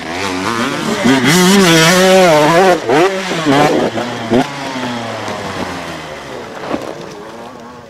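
Enduro dirt bike engine revving, its pitch rising and falling quickly with the throttle for a few seconds, then fading and dropping in pitch as the bike moves away.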